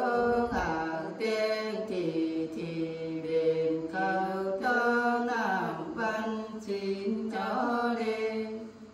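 Unaccompanied female voice singing a Nùng folk song (hát Nùng) in a chant-like style, with long held, wavering notes and downward slides between phrases. The phrase ends shortly before the close.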